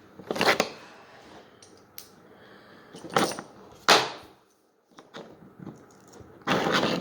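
Handling noise from small plastic and metal parts being worked by hand: a few short rustles and clicks, with a sharper knock about four seconds in.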